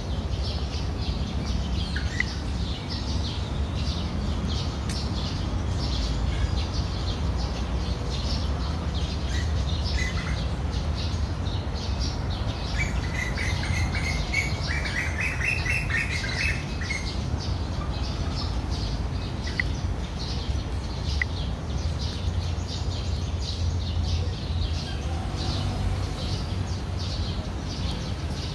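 Small birds chirping in short, quick calls throughout, with a longer warbling call from about 12 to 17 seconds in, over a steady low rumble.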